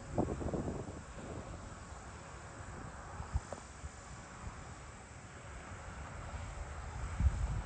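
Steady chorus of summer insects chirping over the field, with wind buffeting the microphone in low gusts just after the start and again near the end.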